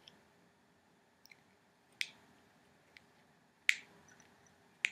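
A handful of short, sharp crackles and clicks from hair being rolled around a cut plastic drinking straw close to the microphone, the loudest about two and three and a half seconds in.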